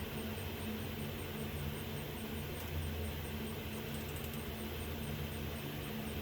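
Steady machine hum with low droning tones, like a running fan or air-conditioning unit, with a couple of faint light clicks about two and a half and four seconds in.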